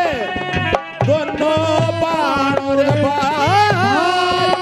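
Haryanvi saang folk music: a hand drum keeps a steady beat under a melodic line whose notes hold, bend and waver. It breaks off briefly just before a second in, then carries on.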